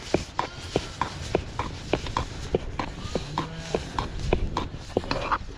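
A stick beating and stirring a stiff, steaming flour porridge in a pot, making wet slapping knocks about three times a second.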